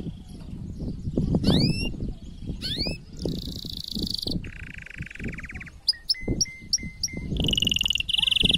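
Male canary's courtship song: two rising whistled notes, then buzzy rolls and trills, a run of about six short repeated notes, and a loud high trill near the end, over a low rumble.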